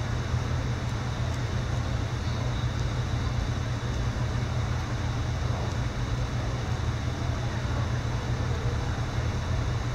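Steady low rumble with an even hiss over it, unchanging throughout.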